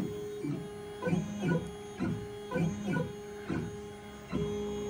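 Stepper motors of an OpenBuilds LEAD 1515 CNC driving the gantry along its lead screws on a dry run with no spindle fitted. The whine holds a steady pitch during each move and swoops down and back up as the machine changes direction, several times.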